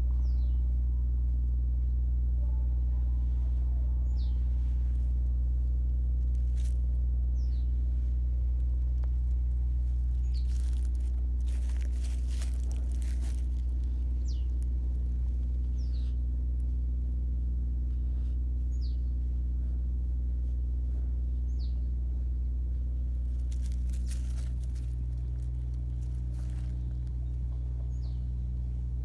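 A steady low hum with a few pitched lines over it, while a bird gives short high, falling chirps every few seconds. Two stretches of rustling come about 11 and 24 seconds in.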